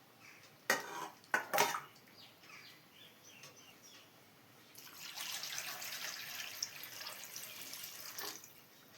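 A few sharp clatters in the first two seconds, then water running from a kitchen tap into a sink for about three and a half seconds before it is shut off.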